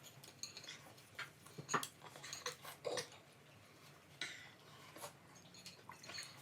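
Eating noises from a mukbang meal of momo and soup: scattered chewing and lip-smacking sounds with light clicks of cutlery on dishes.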